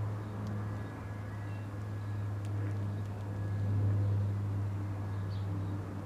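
A steady low mechanical hum, with a few faint ticks over it.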